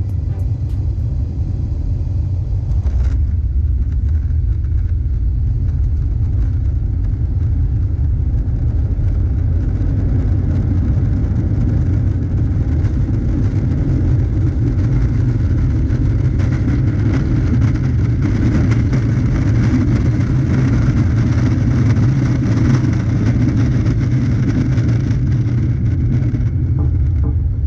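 Airbus A320 cabin noise: a steady low roar of engines and airflow, growing louder about two-thirds of the way through.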